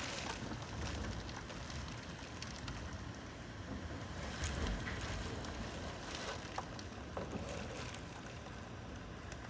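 Hurricane-force wind blowing in gusts, swelling about four and a half seconds in and again near six seconds, with the wind buffeting the microphone and a few small ticks of debris or rattling.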